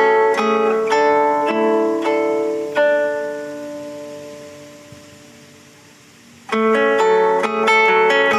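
Instrumental music on a plucked guitar: a slow melody of single notes, then a chord about three seconds in that rings and fades away before the playing picks up again near the end.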